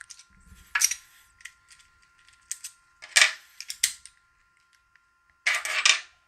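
Metallic clicks and scrapes of a rake pick and tension wrench working a Master Lock No. 1 pin-tumbler padlock, as it is relocked and raked open again. A short, dense run of scraping near the end is the rake being worked over the pins.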